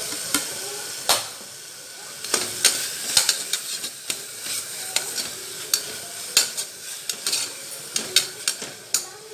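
Onion and ginger-garlic paste sizzling in hot oil in a pressure-cooker pot, with a spoon scraping and knocking against the metal as the masala is stirred; tomato is being added to the sauté.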